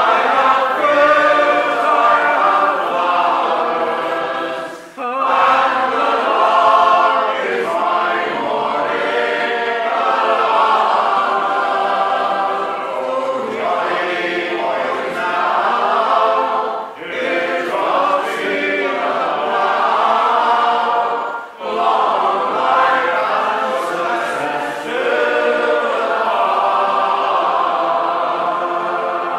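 Men's voices singing an unaccompanied folk song in harmony, with short breaks between sung lines.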